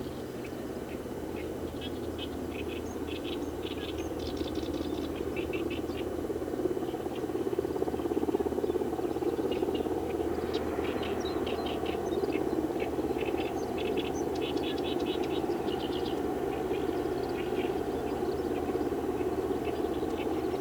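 Wild birds chirping in quick runs of short, high calls over a steady mechanical hum that grows somewhat louder a few seconds in.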